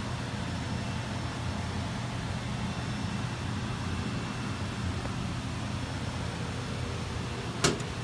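Steady hum of the machine-shop floor, then a single sharp metal clack near the end as a steel Fastenal tool-cabinet drawer is pushed shut.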